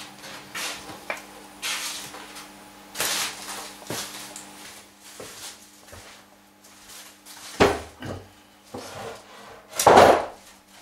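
Wooden live-edge planks scraping and rubbing against each other as one is drawn out of a stack leaning on the wall. The plank is then set down on a wooden workbench with two knocks, the louder one near the end.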